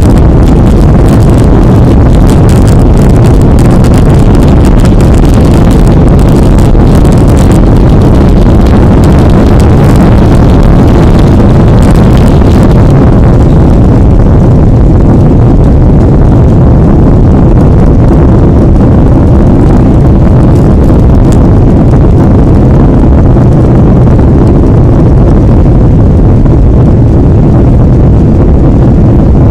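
Airliner takeoff heard from inside the cabin: a loud, steady rumble of engines and airflow. A crackly, rattling hiss rides on top for the first dozen seconds, then fades, leaving a smoother roar.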